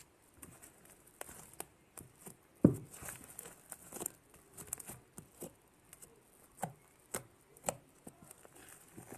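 Fluffy slime made from borax, glue and shaving foam being squeezed and handled, giving irregular soft clicks and squelching pops, the loudest about two and a half seconds in.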